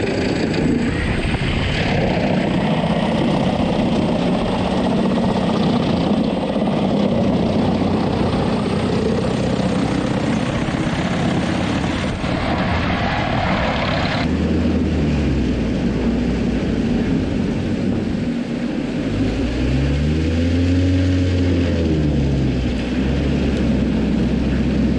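Truck-mounted drum wood chipper running under load, its engine and spinning chipping drum and blower making a loud, steady mechanical din. The sound changes abruptly about 14 seconds in, and around 20 seconds in the engine pitch rises and then falls back.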